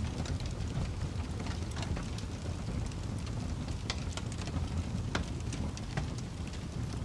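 Wood fire in a fireplace crackling: a steady low rumble of flame with scattered sharp pops and snaps, a few louder ones from about four seconds in.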